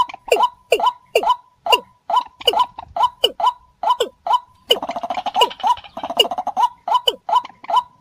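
Bird-lure recording of paddy-field rails (common moorhen, white-breasted waterhen and watercock) calling. Short downward-sliding call notes repeat about two to three times a second, with a burst of rapid chattering about halfway through, over a faint steady tone.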